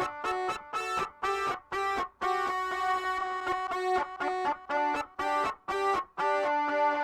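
Isolated pianica (melodica) part run through a filter effect, playing a rhythmic melody of short detached notes, with one longer held note about two seconds in.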